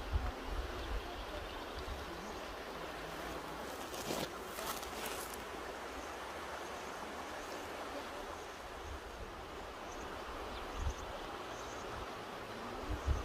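Mountain river rushing steadily, with wind buffeting the microphone now and then and a brief brighter hiss about four seconds in.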